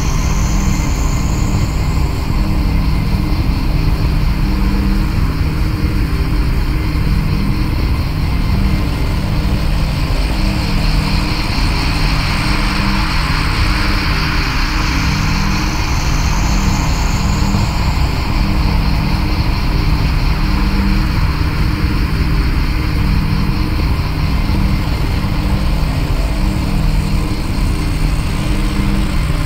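Ambient electronic drone music: a dense, steady wash of noise over low pulsing tones. A high hiss shifts in pitch near the start and again about halfway through.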